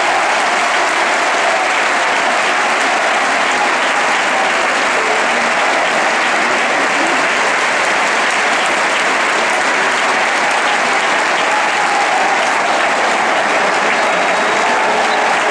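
Large stadium crowd applauding steadily, a dense unbroken clapping that neither rises nor falls.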